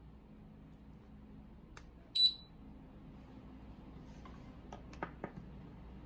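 One short, high-pitched electronic beep about two seconds in from the mobile phone anti-theft alarm system, given as its sensor cable is plugged into the phone. A few light clicks follow near the end as the phone is handled onto its acrylic display holder.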